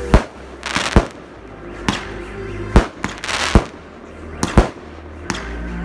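Aerial fireworks going off in a rapid string of sharp bangs, about one a second, with crackling bursts after some of them.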